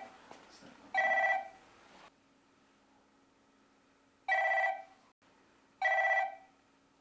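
Mobile phone ringing: an electronic ringtone of short beeps about half a second long, coming in pairs with a longer pause between the pairs, signalling an incoming call.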